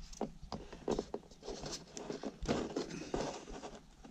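Plastic vent duct being pushed and twisted into a round hole in wooden ceiling cladding: irregular scraping and light knocks of plastic against wood.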